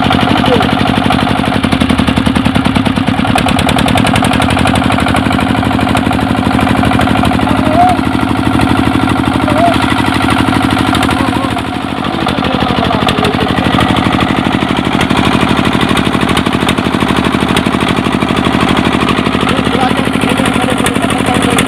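A wooden river boat's engine running steadily with a fast, even chugging pulse, dipping briefly about halfway through.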